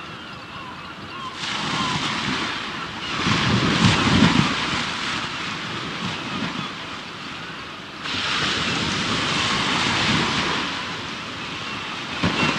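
Sea waves washing ashore: a rush of surf swells in after about a second and a half, breaks most heavily with a low rumble around four seconds, ebbs, then a second wave rushes in at about eight seconds. Faint high chirps sound near the start and end.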